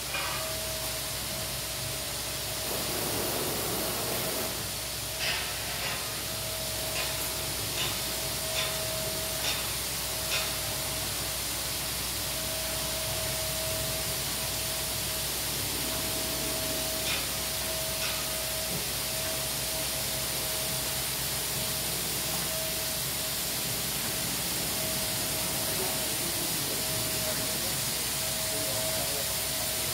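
Automatic rollover car-wash machine spraying water over a car: a steady hiss of water jets with a steady mechanical whine underneath. A series of sharp ticks, about one a second, sounds for several seconds early in the wash, and twice more midway.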